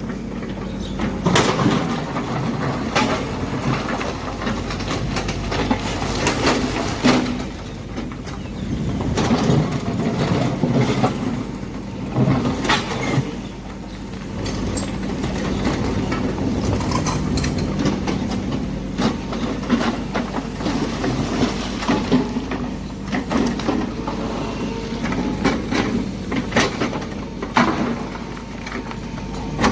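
Excavator at work: a steady machine hum with frequent clanks and knocks from the moving arm, bucket and tracks.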